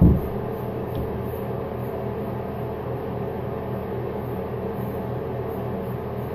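A steady low hum, with a single low thump right at the start.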